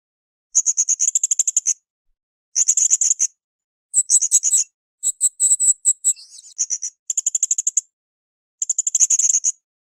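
Blue-crowned hanging parrot (srindit) calling in high, fast chattering trills, in six bursts of about a second each with short silences between.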